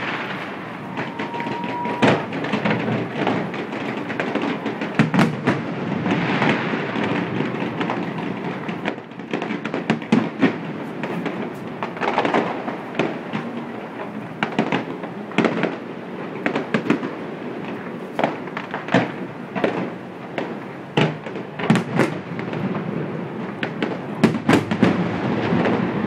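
Fireworks display going off: a steady run of sharp bangs and crackles, one after another, coming thicker near the end.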